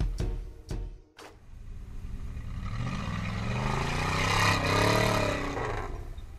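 Off-road trial buggy's engine revving hard under load as it climbs a steep dirt mound. The pitch rises for about two seconds to a peak, then drops as the buggy crests the top.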